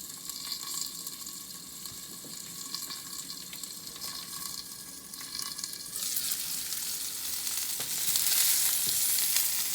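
Prosciutto-wrapped asparagus sizzling in olive oil in a frying pan, a steady hiss that turns suddenly louder and brighter about six seconds in, with a few light clicks.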